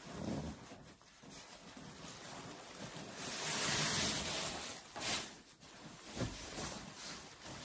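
Nylon shell of a down sleeping bag rustling and swishing as it is pulled out and shaken, the loudest swish about halfway through and a short sharp one a second later.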